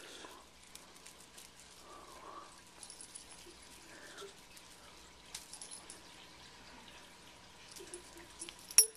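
Metal tags on a cat's collar clinking in short, scattered jingles as the cat lunges and swats, with the sharpest clink near the end.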